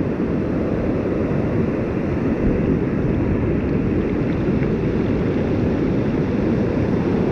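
Shallow surf washing over the sand, mixed with wind rumbling on the microphone: a steady dense noise with no distinct events.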